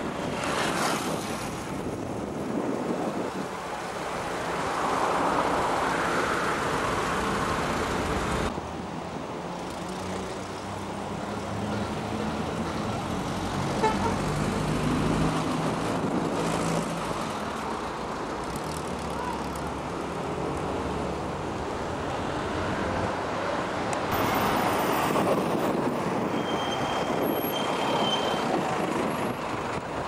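Road traffic on a busy city avenue: cars passing one after another, their sound swelling and fading, with a lower engine hum through the middle.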